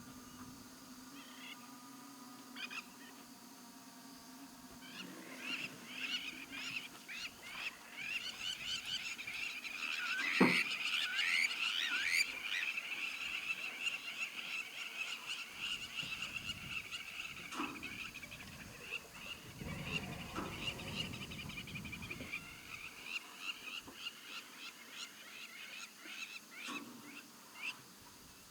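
A wetland chorus of frogs calling, many short high chirps and trills overlapping, busiest in the middle. There is one sharp knock about ten seconds in.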